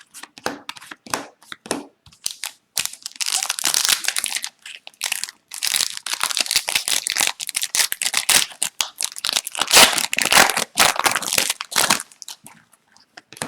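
Foil trading-card pack wrapper crinkling and tearing as it is handled and opened: a few scattered crackles, then dense crinkling from about three seconds in that stops near the end.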